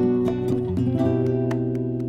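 Guitar strumming and holding chords in a mambo, changing chord about three-quarters of a second in.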